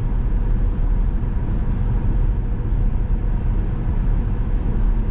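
Interior road noise of a 2004 Saab 9-5 Aero cruising at about 55 mph, heard from inside the cabin: a steady low rumble from the tyres, engine and wind. The cabin has no sound deadening yet, and the noise runs at roughly 58 to 65 dBA at these speeds.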